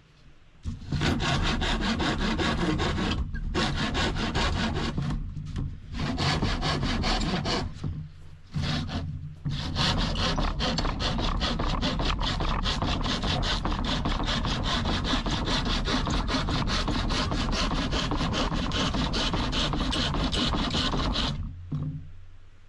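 Hand saw cutting through an oriented strand board (OSB) panel in fast, even back-and-forth strokes. There are a few brief pauses in the first ten seconds, and the sawing stops about a second before the end.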